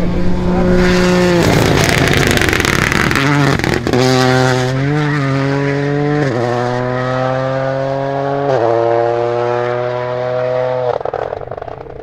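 Toyota GR Yaris rally car's turbocharged three-cylinder engine at full throttle, climbing in pitch and dropping at each upshift, several shifts a couple of seconds apart, with sharp cracks between some of them. It lifts off and fades near the end.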